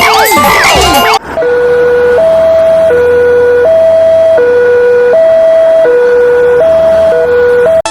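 An ambulance-style two-tone hi-lo siren alternating between a low and a higher note about every three-quarters of a second. It comes in about a second in, after a jumble of overlapping falling whistles and tones, and cuts off abruptly near the end.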